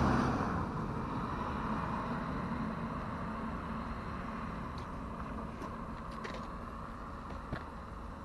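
A car driving past and away down the road, its engine and tyre noise loudest at first and fading steadily. A few faint clicks sound in the second half.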